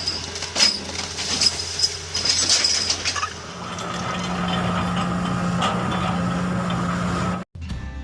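Heavy machinery sound effect: an engine hum with several sharp metallic clinks and clanks, then a steady engine drone from about three and a half seconds in that cuts off abruptly near the end.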